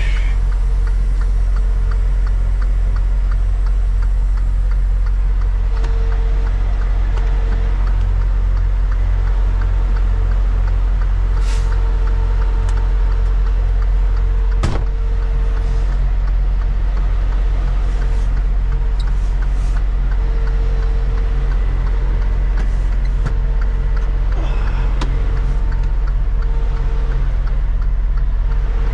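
Semi-truck diesel engine running steadily, heard from inside the cab as a constant low drone. A sharp click or knock comes about fifteen seconds in.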